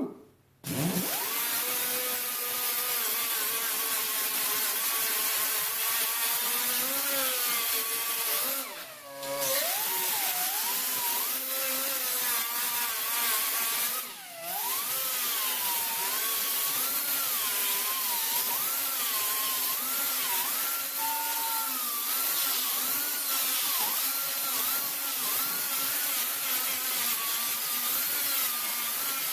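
Small angle grinder grinding the cut edges of a steel exhaust pipe, a steady high whine whose pitch sags and recovers as it is pressed into the metal. It stops briefly twice, about a third and halfway through, and spins back up each time.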